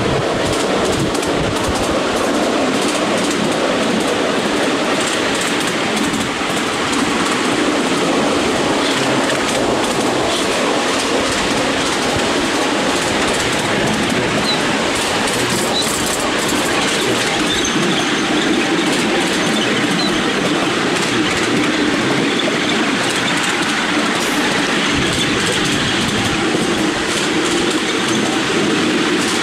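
Miniature railway train running steadily along the track, heard from a passenger car riding behind its BR class 37 miniature locomotive: the wheels rolling on the rails make a continuous, even rumble.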